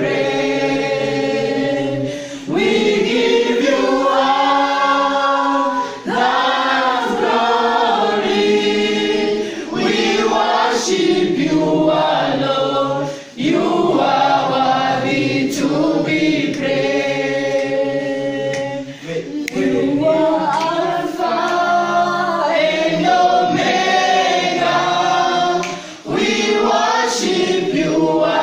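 Children's choir with a few adult voices singing a Christian praise song together, in phrases broken by short pauses for breath.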